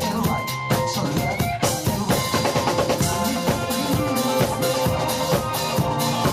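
Instrumental stretch of a band's song, with a drum kit keeping a busy, steady beat on bass drum and snare under held notes from other instruments.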